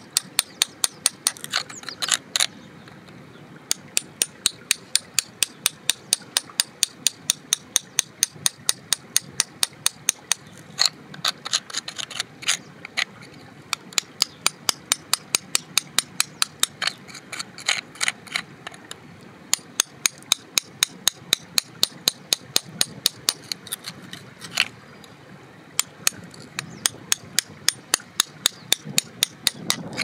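A metal pick tapping and chipping at crumbly sandy rock, a rapid run of sharp clicks about three to four a second, with a few brief pauses.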